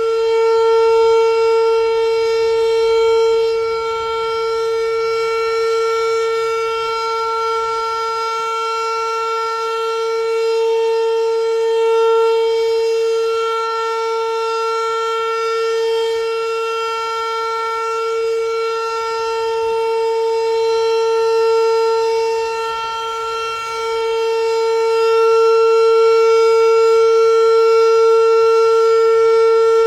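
Model 5 eight-port outdoor warning siren sounding a steady full-alert tone: one held wail that swells and fades in loudness, dipping briefly a little past the middle and growing louder toward the end.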